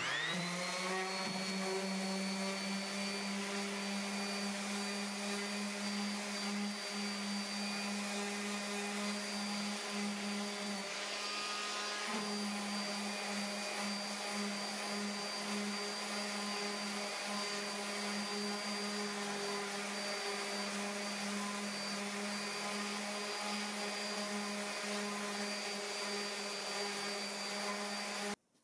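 A small electric power-tool motor switches on and spins up to a steady, high hum within about a second. It runs evenly, dips briefly in pitch about eleven seconds in, then cuts off suddenly near the end.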